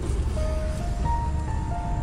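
Background music: a simple tune of single held notes over a steady low rumble.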